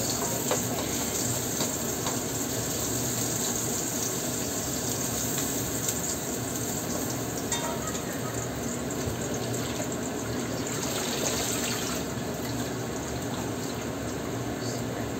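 Chopped garlic and ginger sizzling steadily as they pan-fry in a wok, with a few light clicks of the spatula against the pan in the first half.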